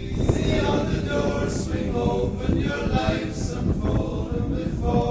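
Music with singing voices, over a steady low rumble.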